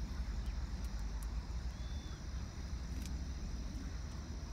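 Smoke firework burning steadily with a faint hiss, under a steady low rumble of wind on the microphone; a single sharp click about three seconds in.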